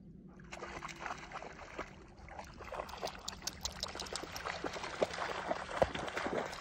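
A dog running through shallow lake water: a quick run of splashes that grows louder as it comes closer.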